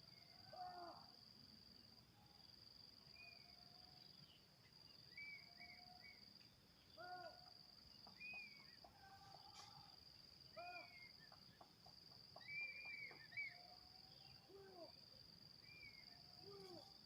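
Faint outdoor ambience: a steady high-pitched insect drone, with short animal calls scattered across it every second or two.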